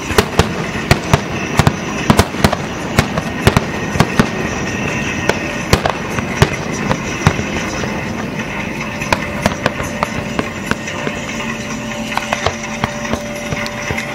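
Aerial fireworks shells bursting: a rapid run of sharp bangs and crackles, several a second, thinning out around the middle and picking up again.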